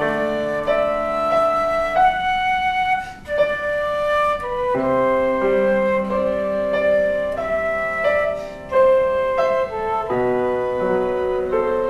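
Instrumental music: a slow melody of held notes over changing chords.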